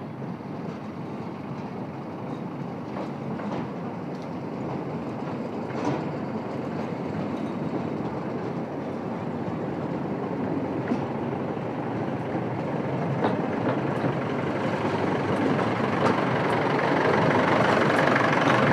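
Miniature joy train running on its small track, growing steadily louder as it approaches and its locomotive passes close by, with a few sharp clicks along the way.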